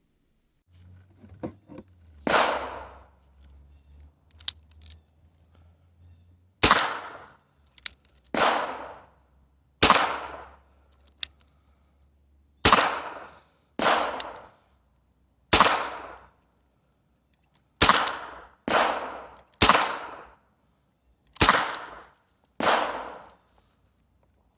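M1895 Nagant revolver gunfire: about a dozen sharp shots, one to two and a half seconds apart, each trailing off in a short echo, with a few faint clicks between shots.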